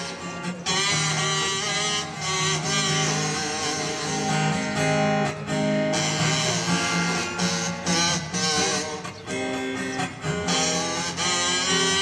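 Guitar strummed and picked in an instrumental passage of a song, with no singing.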